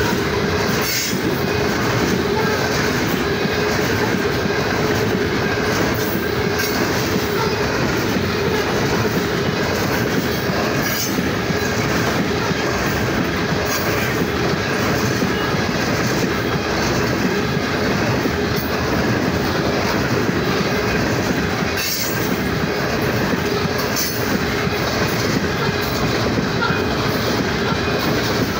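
Loaded coal cars of a freight train rolling past at close range: a steady rumble and rattle of steel wheels on rail, with a steady ringing tone running through it and wheels clacking every few seconds.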